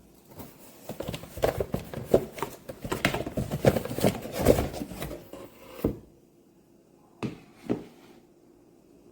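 Hard wheat-straw plastic bowls being handled, clattering and knocking against each other and a surface in a quick irregular run for about six seconds. Two more single knocks follow a moment later.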